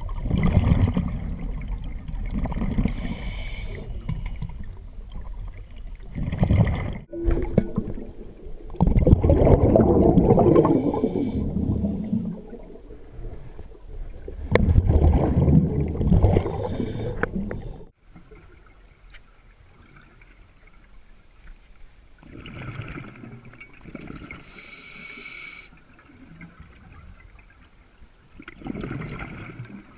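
Scuba diver breathing underwater through a regulator: several exhalations, each a gush of bubbles, with a short hiss of the inhaled breath, softer in the second half.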